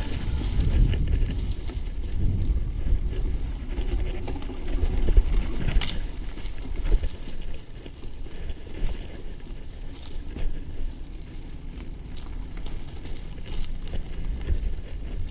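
Mountain bike riding down a bumpy dirt trail: a steady low rumble of riding noise and wind on the microphone, with scattered knocks and rattles from the bike over rough ground. The rumble eases about halfway through.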